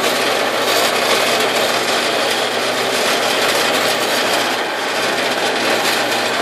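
Harbor Freight 4x6 horizontal metal-cutting bandsaw running, its blade scraping steadily on a steel flat bar over a low motor hum. It is making little headway: a part of the saw was hitting and holding the blade back.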